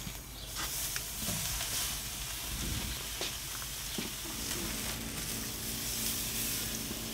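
Smoked tri-tip sizzling steadily as it is reverse-seared on a hot grill grate, with a few light clicks.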